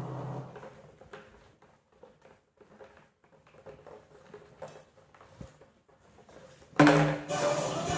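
Soft, scattered clicks and taps of a parakeet pecking at the cap of an empty plastic bottle and nudging the bottle across a stone floor. Loud music and voice cut in suddenly about seven seconds in.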